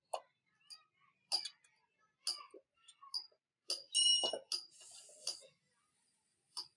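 A steel tyre lever clicking and clinking against the steel rim and spokes of a spoked motorcycle wheel as the tyre bead is worked: sharp, irregular clicks about once a second. About four seconds in comes one louder click with a brief metallic ring, followed by a short scraping hiss.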